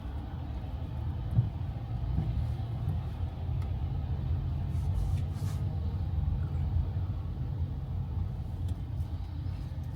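A steady low rumble, with a few faint clicks on top.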